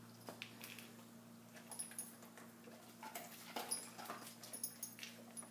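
Faint scattered clicks and rustles of a small dog moving about and handling treats, over a steady low hum.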